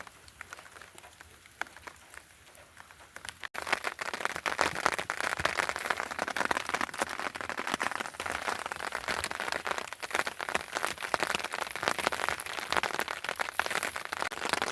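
Drizzle pattering on a nearby surface: a dense, steady ticking of raindrops that starts abruptly a few seconds in, after a stretch of faint scattered drips.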